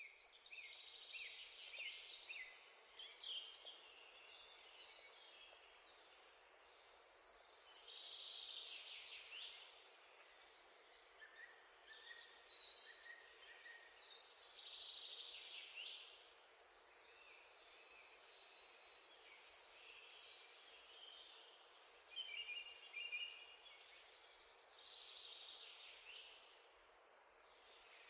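Faint birdsong: clusters of high chirps and trills coming every few seconds, over a steady background hiss.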